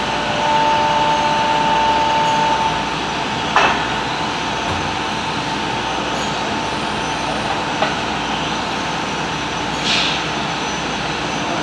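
Steady factory machinery noise, with a high steady tone in the first couple of seconds, a sharp knock about three and a half seconds in and a short hiss near the end.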